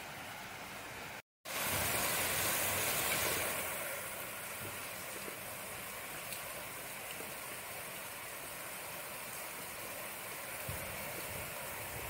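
Steady rain falling. The sound cuts out completely for a moment about a second in, comes back louder and hissier for about two seconds, then settles to an even patter.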